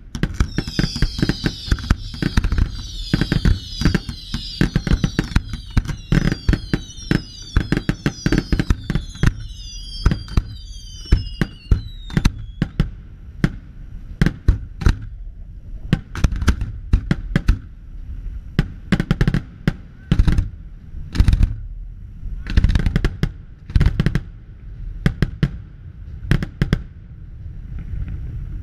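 Fireworks display: a rapid barrage of aerial shell bursts mixed with many whistles falling in pitch for about the first twelve seconds. The barrage then thins to single loud bangs about a second apart.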